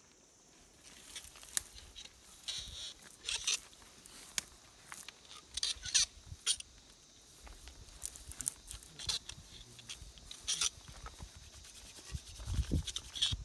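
Scattered clicks, taps and rustles of hands handling syringes, vials and plastic packets while veterinary darts are prepared, over a faint steady high hiss. A low rumble comes near the end.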